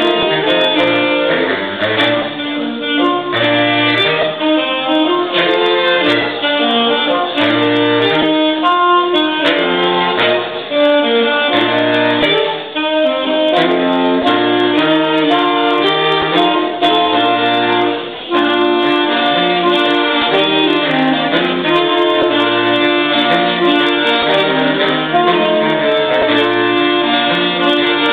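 A saxophone ensemble of five players performing a tune in several parts at once, with sustained melody notes over a low bass line and short breaks between phrases.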